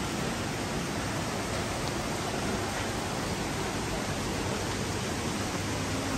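Steady rush of a mountain stream cascading down a rocky valley, an even hiss with no breaks.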